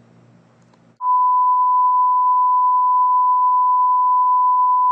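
A steady 1 kHz reference test tone, the 'bars and tone' signal that goes with colour bars, comes in sharply about a second in and holds one unchanging pitch. Before it there is a second of faint low hum.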